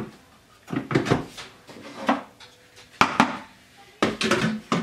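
Stainless-steel bowl of a Monsieur Cuisine food processor being seated back in its base and the lid fitted and locked: a series of short metallic clunks and clicks.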